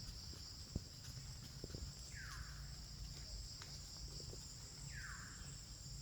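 Insects trilling steadily at a high pitch, with two short falling calls about three seconds apart and a few faint clicks.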